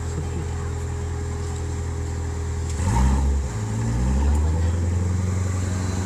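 C7 Corvette's V8 idling with a low, steady rumble. Just before halfway it revs briefly, the pitch rising and falling, then it settles back and runs on a little louder.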